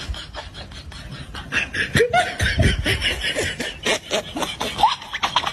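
A person laughing, with short clicks and knocks throughout.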